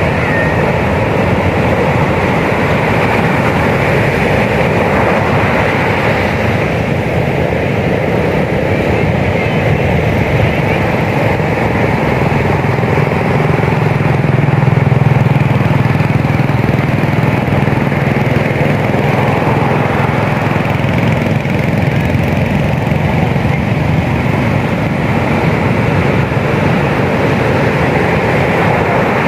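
Heavy ocean surf breaking on a beach: a continuous roar that swells a little about halfway through.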